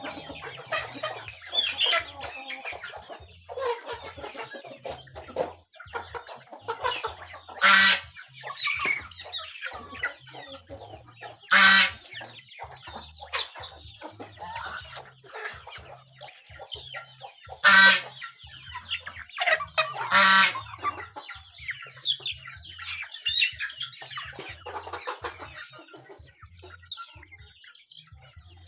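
Chickens and geese feeding together: continual clucking and short calls from the flock, with four louder, brief calls standing out.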